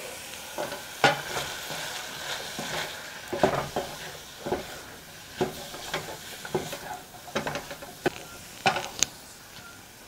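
Wooden spatula stirring broccoli, onion and cornflour in a stainless steel saucepan, with irregular scrapes and knocks against the pan over a low sizzle of butter.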